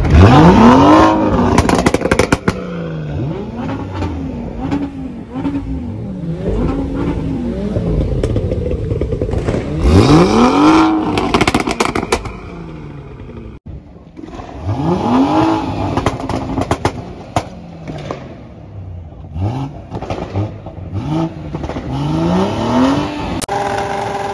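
High-revving performance engine being free-revved on the spot, over and over: quick blips and longer pulls that climb and drop back, with sharp exhaust pops and crackles as the revs fall.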